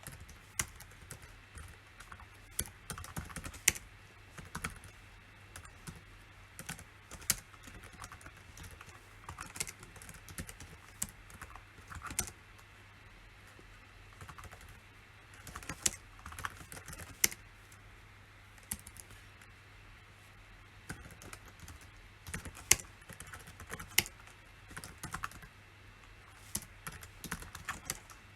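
Typing on a PC keyboard: irregular flurries of key clicks with short pauses between them, over a faint steady hum.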